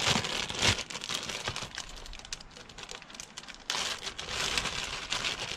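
Plastic packaging crinkling and rustling as it is handled, in a dense run of small irregular crackles that grows louder again about two thirds of the way in.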